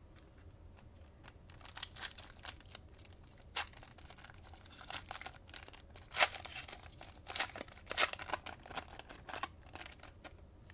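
Foil wrapper of a Panini Chronicles basketball card pack being torn open and pulled apart by hand: irregular crinkling and tearing with sharp crackles, starting about a second in and strongest around the middle.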